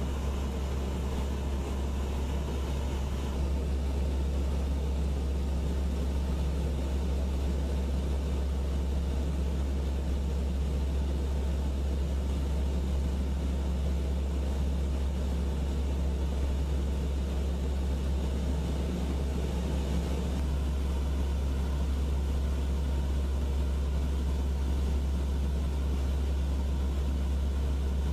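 Aircraft engine drone, a steady low rumble that steps up in level about three seconds in.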